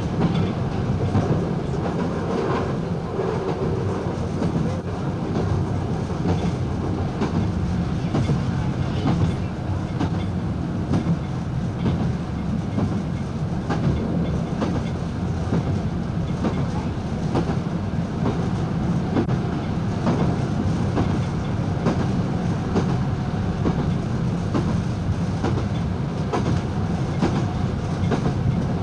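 Diesel multiple unit running along the line, heard from the front of the train: a steady drone from the diesel engine and running gear, with the wheels clicking over rail joints.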